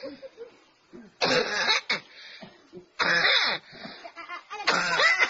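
A smoker coughing in three hard bouts, each about half a second long and roughly a second and a half apart.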